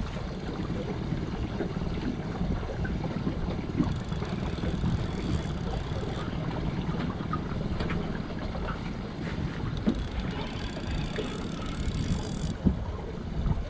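Wind rumbling steadily on the microphone, with a few faint knocks.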